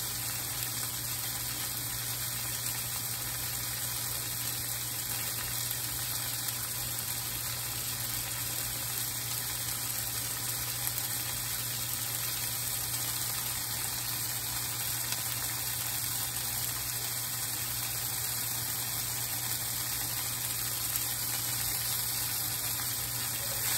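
Yellow squash and onions frying in oil in a cast-iron skillet, a steady sizzle as they brown, over a low steady hum.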